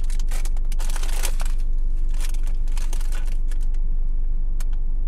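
Snack packaging crinkling and rustling in short bursts as the crate is searched, over a steady low hum inside the car.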